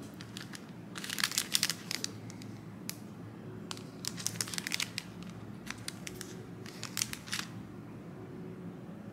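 Clear plastic packaging sleeves crinkling as hands pick up and handle packaged acrylic phone grips. The crinkling comes in three short spells: about a second in, around four to five seconds, and near seven seconds.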